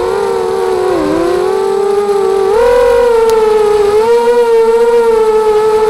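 ZMR250 racing quadcopter's motors and propellers whining loudly, heard from on board the craft. The pitch dips about a second in, climbs about two and a half seconds in as the throttle goes up, then holds steady.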